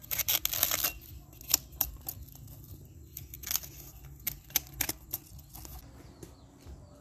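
Cleaver chopping slices off a fresh bamboo shoot: a quick flurry of cuts at first, then single sharp chops every half second or so.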